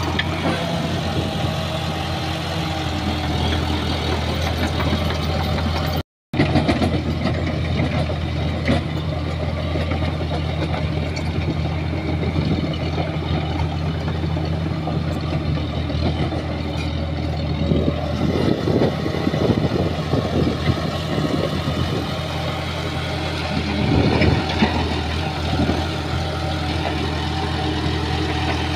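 Shantui bulldozer's diesel engine running steadily, with the sound dropping out briefly about six seconds in and bursts of rattling noise about two-thirds of the way through.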